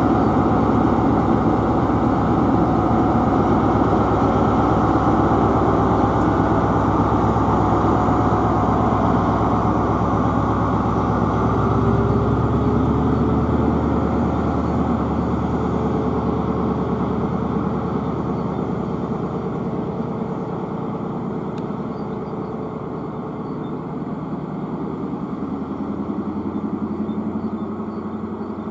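Class 43 HST power car's MTU diesel engine under power as the train pulls away, loud at first, its note rising slightly about halfway through, then fading as it draws off.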